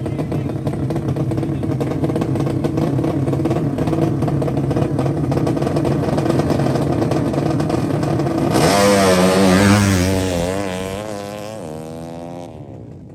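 Drag-racing motorcycle engines running for about eight seconds, then revving hard with the pitch wavering up and down, falling away and fading out near the end.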